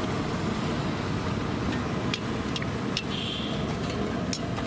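Bhatura deep-frying in a kadhai of hot oil, sizzling over a steady low rumble, with a few sharp clicks in the second half.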